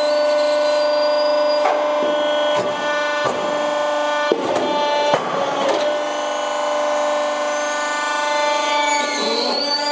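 Polyurethane briquetting press running with a steady pitched hum while a compressed briquette is pushed out of its steel die. Short creaking, crackling scrapes come every second or so as the briquette rubs its way out, with a faint rising squeal near the end.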